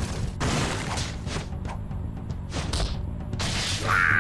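Action-cartoon score with whooshing and crashing fight sound effects over it; a loud, high sound comes in near the end.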